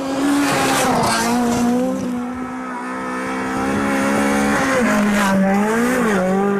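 Rally car engine held at high revs on a gravel stage, its note mostly steady, dipping and rising again near the end. Twice there is a hiss of gravel and tyre noise as the car comes through.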